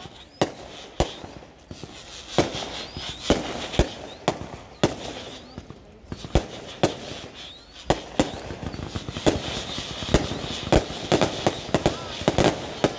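Firecrackers going off in sharp single bangs at irregular intervals, coming faster near the end, amid a celebrating crowd's voices.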